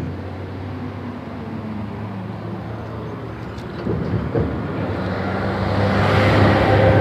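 Motorcycle engine running steadily at low speed, with wind rushing on the microphone that grows louder in the last couple of seconds.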